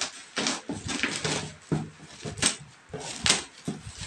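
Bubble wrap and plastic packaging crinkling and crackling in irregular bursts as it is cut and pulled off a parcel. The sharpest crackle comes a little past the three-second mark.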